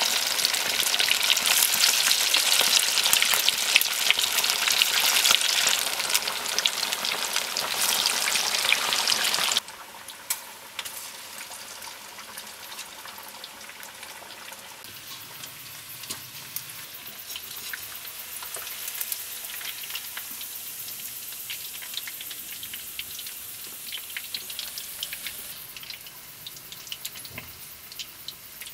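Chicken pieces deep-frying in hot oil in an iron wok: a loud, dense sizzle full of crackling pops. About ten seconds in it drops suddenly to a much quieter sizzle with scattered small ticks.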